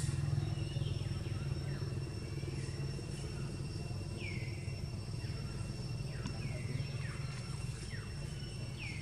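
Low, steady engine rumble like a motorcycle running nearby, easing slightly after the first second. Several short high chirps slide downward over it.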